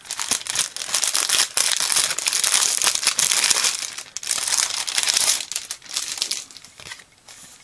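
Clear plastic cellophane bag crinkling and crackling as a card mini album is slid out of it by hand, easing off near the end.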